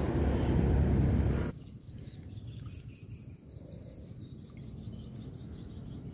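A low rumbling noise that cuts off suddenly about a second and a half in, followed by faint scattered bird chirps and insect calls.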